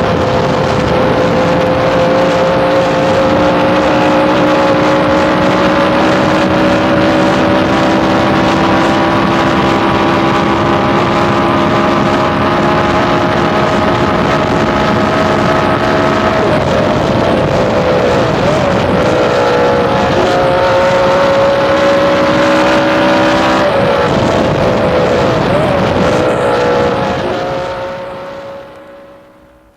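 Cooper-Maserati V12 Formula One engine heard from the cockpit at high revs in top gear, its note climbing slowly and almost constant as wind resistance holds the speed. The note dips and wavers twice as the driver briefly backs off, then picks up again before the sound fades out near the end.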